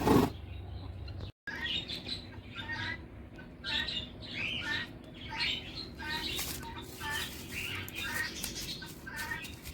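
Small birds chirping: short, repeated chirps in clusters every second or so, starting after a brief drop to silence about a second in.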